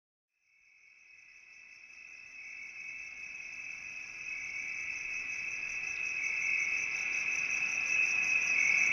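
High, steady insect trilling like a cricket chorus, fading in from silence and growing louder throughout.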